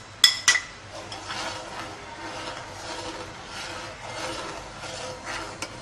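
Metal spoon clinking twice against a metal pot, then scraping steadily round the pot as milk custard is stirred while it cooks.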